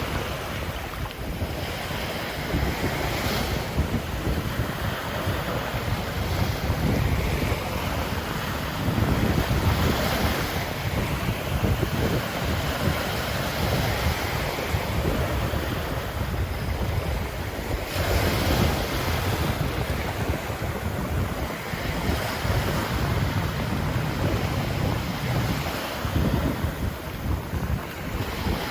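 Ocean surf breaking and washing onto a beach, rising and falling in swells every few seconds, with low wind rumble on the microphone.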